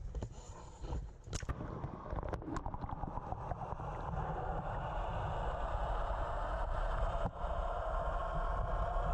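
Water sloshing and splashing against an action camera as it goes under at the sea surface, with a few sharp knocks in the first seconds. Then a steady, muffled underwater rush and bubbling heard through the camera housing.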